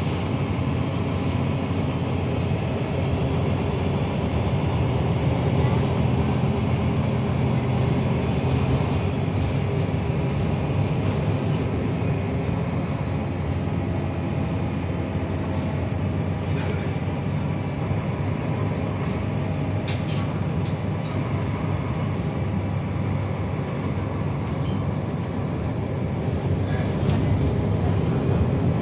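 Steady running sound of a MAN NL323F diesel city bus under way: the engine's low drone over road noise, with faint rattles.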